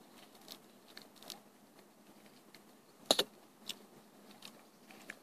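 Drinking from a plastic drink bottle: faint scattered clicks of swallowing and the bottle being handled, the sharpest about three seconds in.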